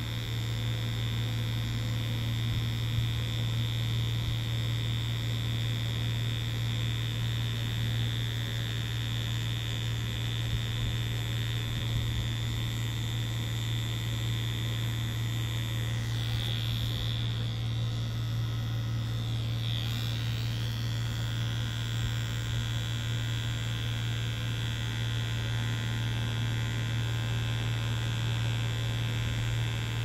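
Mummy Anubis tattoo machine running with a steady electric buzz as the needle works into the skin. The higher part of the sound shifts briefly a little past the middle.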